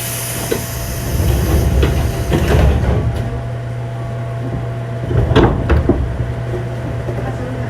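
Passenger doors of a JR 205-series electric train closing at a station stop: an air hiss at the start, then heavy thuds as the sliding doors shut, with a second clunk about five seconds in. A steady low hum from the train's equipment runs underneath.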